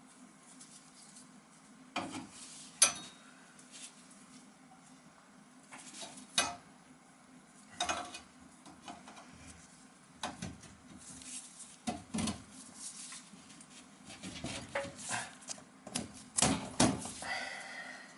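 Irregular metal clinks and knocks from copper pipe fittings and tools being handled, with the loudest clank about three seconds in and a busier run of knocks near the end.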